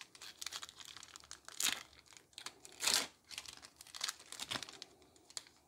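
Foil wrapper of a Pokémon trading card booster pack being torn open and crinkled by hand, in irregular crackles, loudest about a second and a half and three seconds in.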